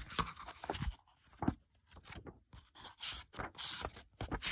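Paper pages of a hardcover book being turned and handled, rustling and scraping in irregular strokes with a few sharp clicks.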